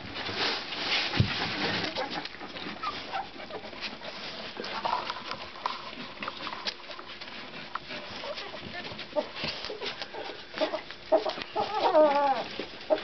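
Thirteen-day-old Labrador puppies nursing: scattered short squeaks and many small clicks and shuffles, with a louder wavering whimper near the end.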